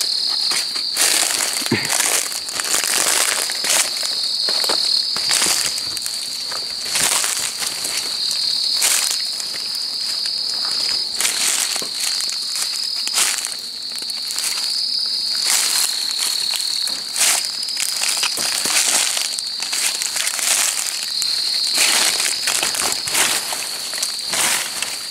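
Night insects chirring in a steady, high continuous trill. Over it come irregular crunches and rustles of leaf litter, twigs and brushed foliage, a few each second.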